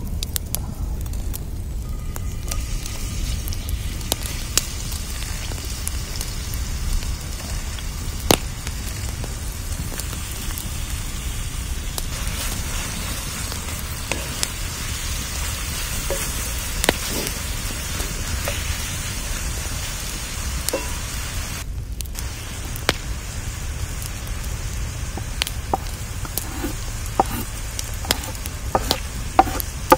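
Sliced onions frying in oil in a cast-iron pan over a wood fire: a steady soft sizzle with scattered sharp crackles and knocks.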